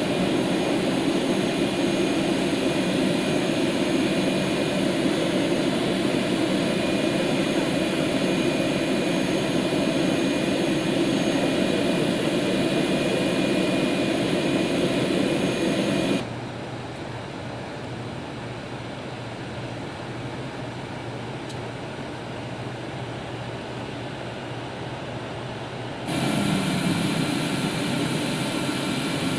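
Boeing 737-200 turbines running on the ramp: a steady jet rush with high-pitched whine tones. The sound drops suddenly to a quieter level about halfway through and comes back just as suddenly near the end.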